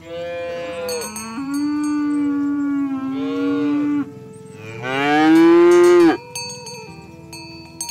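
Cattle mooing: a long, steady moo for about four seconds, then a second, louder moo that rises and falls in pitch and cuts off about six seconds in.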